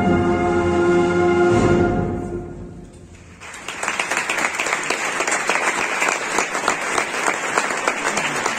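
A brass band with percussion holds its final chord, which dies away in the church's long echo over the first three seconds. About three and a half seconds in, the audience starts applauding and keeps on.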